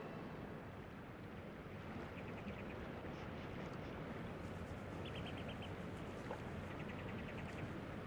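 Water of a shallow rocky stream rushing steadily over stones. A small bird's quick trill of high notes is heard faintly three times, at about two, five and seven seconds in.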